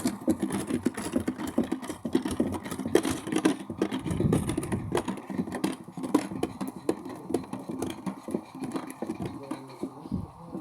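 Washing machine in its spin cycle: a steady mechanical hum with fast, irregular rattling knocks, growing quieter toward the end as the spin winds down.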